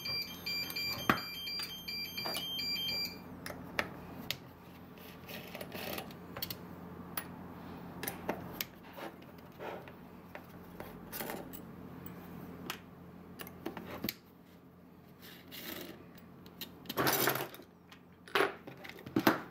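Small metallic clicks and clinks of a screwdriver and metal parts on an airsoft electric gun's version 3 gearbox shell as it is unscrewed and handled, with a cluster of knocks near the end. A high electronic beeping pattern sounds over the first few seconds, and a steady low hum runs underneath.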